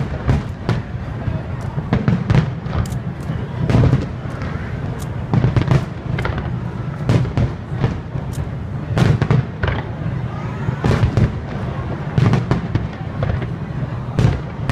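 Aerial firework shells bursting in a dense barrage: a rapid, unbroken run of deep booms and bangs, several a second.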